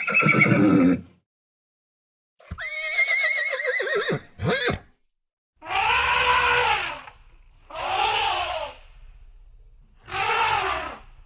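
A series of farm animal calls. A short call comes at the start, then a wavering bleat-like call about two and a half seconds in. Three drawn-out calls follow about two seconds apart, each rising and then falling in pitch.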